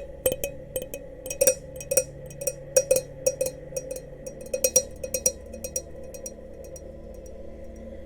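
Glass goblets clinking together in a quick, irregular run of strikes, about two or three a second, each with a short ringing tone. The strikes thin out after about six seconds.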